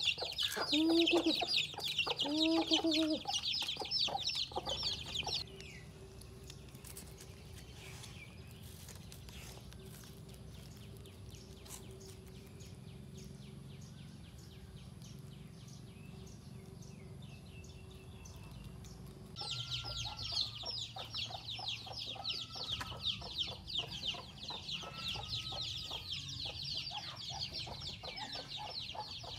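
Chickens clucking over a dense, rapid, high-pitched chirring in the background. The sound drops away for a quieter middle stretch of about fourteen seconds, then the clucking and chirring come back.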